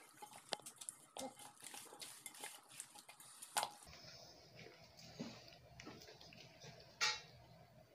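Hands rubbing masala paste into a whole raw chicken in a steel pot, with small clicks and knocks of the meat and fingers against the pot. Two louder knocks come about three and a half and seven seconds in.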